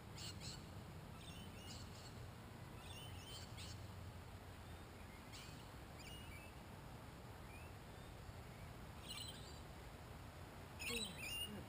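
Faint birdsong: scattered short chirps and calls, a few at a time, over a steady low background rumble.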